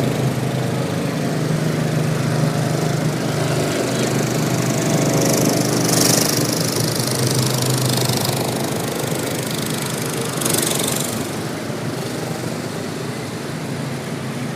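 Small engines of riding lawn mowers running steadily as they pull away, with two short bursts of hiss, one about five to seven seconds in and one about ten seconds in.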